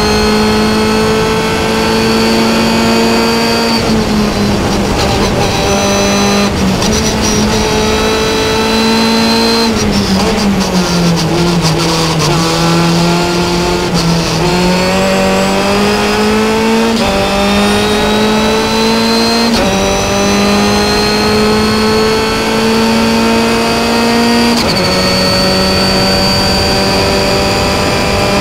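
Onboard sound of a Formula Continental race car's 2-litre Ford Zetec four-cylinder engine running at high revs. Its pitch sags under braking about a third of the way in, then climbs back, with sudden small drops at upshifts.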